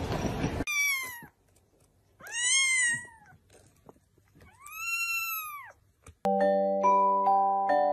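A small kitten meowing three times, each call rising and then falling in pitch, with a second or so between them. About six seconds in, mallet-instrument music like a vibraphone starts.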